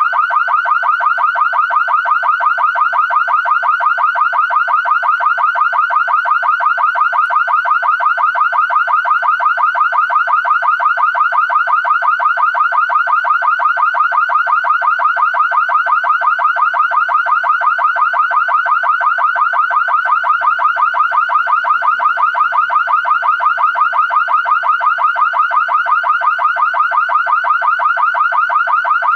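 Car alarm siren sounding a fast, evenly repeating electronic chirp that keeps the same pitch and pace.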